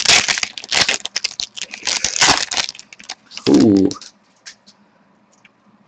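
Trading-card pack wrapper crinkling and tearing as it is opened by hand, a fast run of crackles over the first three seconds that thins to a few faint rustles. A brief hummed voice sound cuts in about three and a half seconds in.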